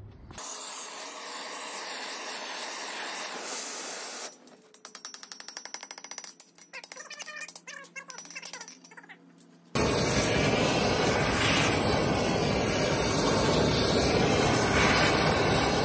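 A few seconds of steady hiss, then a quick run of hammer blows on an aluminum bar lying on a steel anvil. About ten seconds in, a louder steady rush takes over: an oxy-fuel torch flame heating the bar for more forging.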